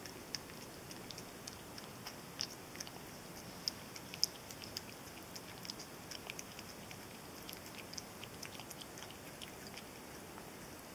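A cat lapping and chewing canned tomatoes from an open tin: faint, irregular wet clicks and smacks of tongue and mouth, several a second, with a couple of sharper clicks about four seconds in.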